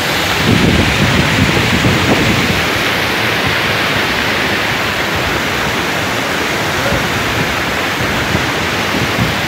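Mountain stream rushing over boulders in small waterfalls: a loud, steady rush of water. Low gusts of wind buffet the microphone in the first couple of seconds.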